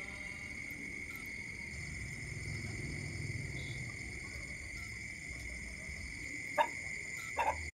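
Crickets trilling steadily as one unbroken high tone, over low background noise. Two short clicks come near the end.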